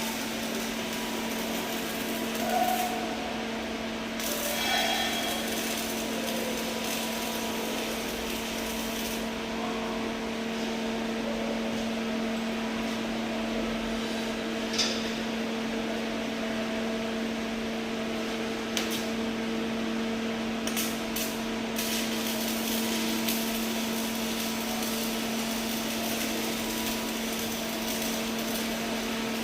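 Arc welding: a steady crackle over the welding machine's constant hum, with a few short clicks.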